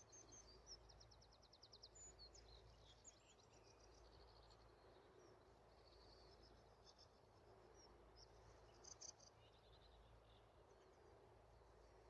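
Faint song of several small birds: high chirps and quick trills, one short trill of about ten notes a second in the first second.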